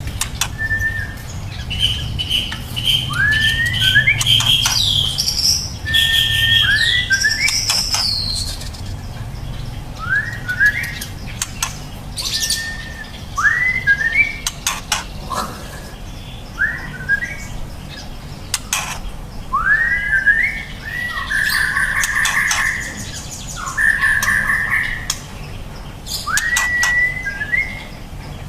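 Young speckled white-rumped shama singing: short upward-sweeping whistles repeated every second or two, with runs of quick rapid notes and some higher whistles, among scattered sharp clicks. A steady low hum runs underneath.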